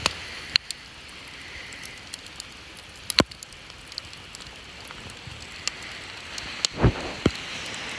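Campfire embers and charred logs crackling, with scattered sharp pops over a steady hiss; a few louder pops come about three seconds in and again a little before the end.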